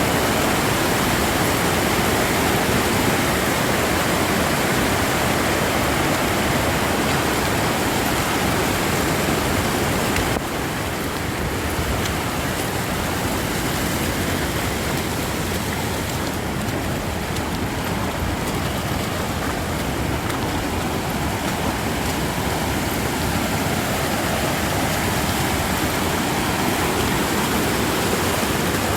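Fast-flowing mountain creek rushing steadily, an even whitewater noise; about ten seconds in it becomes slightly quieter and duller.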